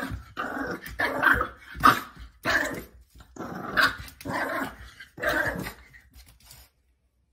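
Young puppy giving a string of short growling barks, about one every half second to a second, that stop about six and a half seconds in.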